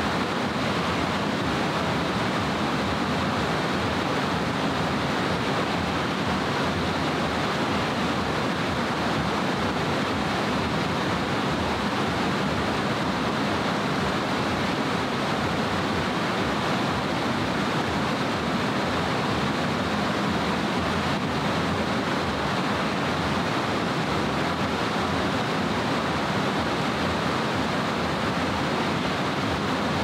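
Loud, steady rush of fast-flowing mountain water, unbroken and even throughout.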